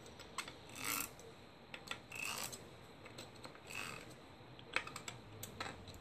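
Small hex wrench tightening the barrel fitting of a takedown Daisy Legacy .22 rifle: faint, scattered clicks and short scrapes of metal tool on metal parts as it is turned a bit at a time.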